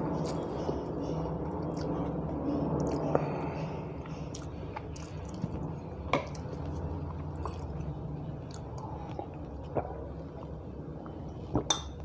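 Wet squishing of rice and dal being mixed by hand on a steel plate, along with chewing. A few sharp clicks sound, one about six seconds in and the loudest near the end.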